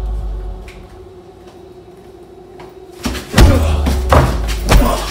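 A low hum fading out in the first second, then several loud, heavy thuds and knocks from about three seconds in: blows and bodies striking during a scuffle.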